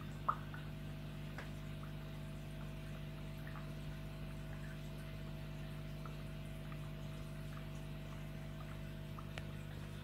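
Aquarium with a sand waterfall running: a steady low pump hum under faint trickling water, with a sharp click just after the start and a few soft drips.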